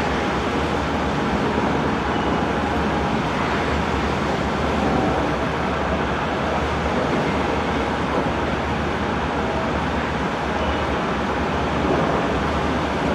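Steady rumble and rush of a high-speed catamaran ferry's engines and KaMeWa waterjets churning the water at both sterns while the vessel manoeuvres at its berth.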